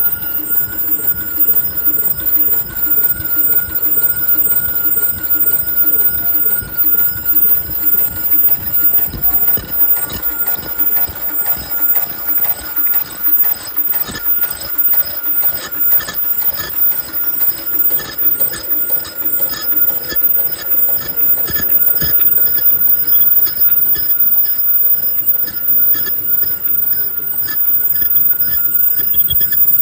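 Fully automatic KF94 mask making machine running: a fast, even mechanical clatter as its stations cycle, over a steady high tone.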